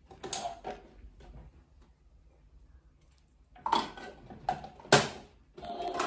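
Plastic clicks and knocks from handling the door of a small toy washing machine, with one sharp click about five seconds in. Background guitar music comes in near the end.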